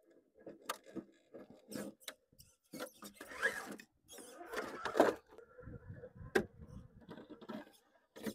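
Redcat Ascent RC rock crawler clambering over rocks: its electric motor and gears whine on and off while the tyres and chassis scrape and knock against stone. There is a sharp loud knock about five seconds in as the truck tips and lands, and a steadier motor whine follows.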